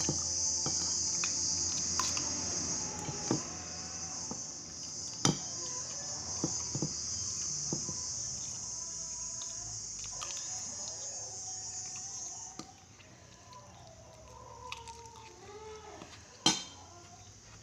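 A metal spoon and fork clink against a ceramic plate while eating, a few scattered sharp clinks, the loudest near the end. Behind them a steady high insect chirring runs until it stops about two-thirds of the way in.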